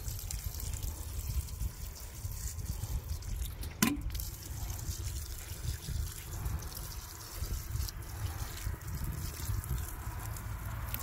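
Water trickling from a plastic watering can's spout onto dry soil around catnip seedlings, with a steady low rumble underneath. A single sharp click about four seconds in.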